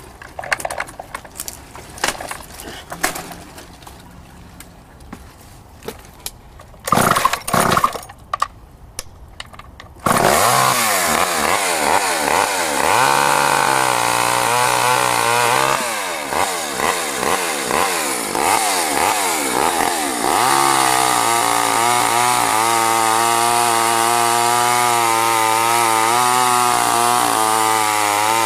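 Two-stroke Craftsman gas chainsaw, revived with a new fuel line and fuel pickup. After some knocks and a couple of short loud bursts, it starts about a third of the way in and runs loud. It revs up and down, then holds at high speed.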